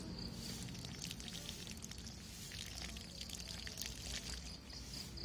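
Water poured over a plastic-wrapped air layer of coconut fibre and soil on a guava branch, trickling off the plastic and dripping onto the leaves and ground. It is faint and steady, with scattered small drips.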